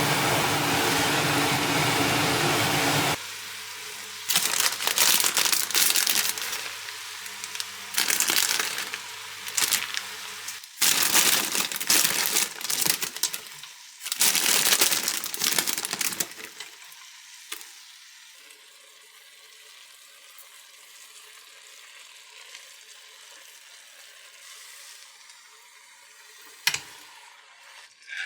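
Food frying in a pan of oil, sizzling in irregular loud surges for about twelve seconds, then settling to a low steady hiss. It follows a few seconds of loud, steady whirring, and one sharp click comes near the end.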